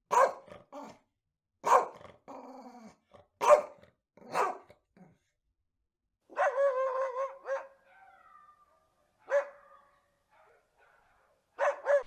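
Dog barking: single sharp barks a second or two apart, one longer drawn-out call held at a steady pitch for about a second around the middle, and two quick barks near the end.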